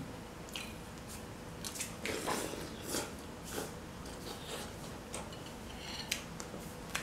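Metal spoon clinking and scraping against a glass bowl of chilli broth during a meal, with a handful of separate sharp clicks and a short scraping rustle about two seconds in.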